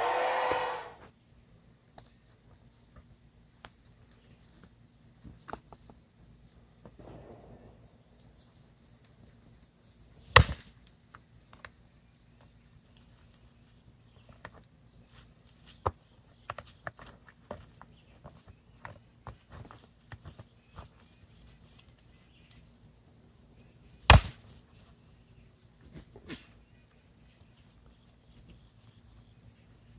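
Steady high-pitched insect trill, with scattered faint clicks and two sharp knocks, one about a third of the way in and one about four-fifths of the way in.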